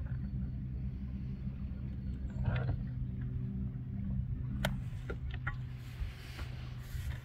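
Boat motor idling: a steady low hum, with a few light clicks about midway.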